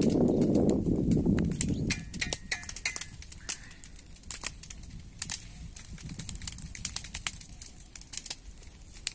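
Dry sugarcane leaves and stubble burning in a field: a loud low rush for about the first two seconds, then an irregular crackle of sharp pops and snaps as the dry trash catches.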